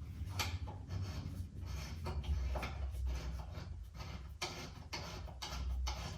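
Irregular scrapes and clicks of a compression fitting being worked onto compressed-air line tubing by hand, several a second, over a low steady hum.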